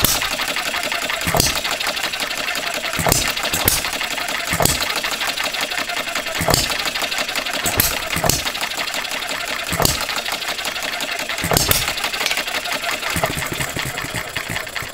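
Two model hit-and-miss engines, a Philip Duclos Odds n Ends and a Farm Boy, running side by side: a steady mechanical clatter, broken by a sharp firing bang every second or two as one fires and then coasts on its flywheels. The firings stop about twelve seconds in. The Odds n Ends has new cast iron piston rings that are not yet fully run in, and the builder expects it to coast longer between firings once they are.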